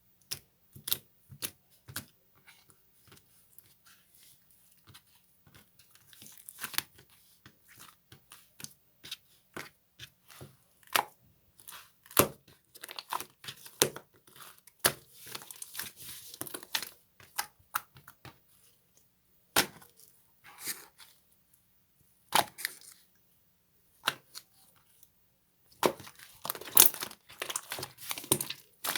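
Paper, stickers and tape being handled by hand: intermittent tearing, peeling and crinkling, mixed with light taps and clicks. Busier stretches come about halfway through and again near the end.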